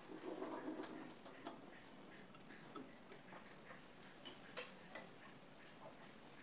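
Faint handling sounds at a sewing machine: a brief soft rustle in the first second, then a few scattered light clicks of small metal parts being handled.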